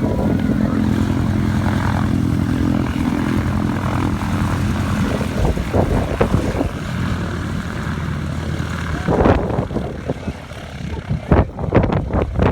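A propeller aircraft's piston engine running steadily, then dying away about eight seconds in, followed by irregular knocks and bumps.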